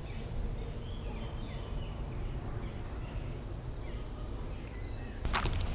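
Outdoor ambience: a steady low wind rumble on the microphone with faint birds chirping now and then, and a short sharp knock about five seconds in.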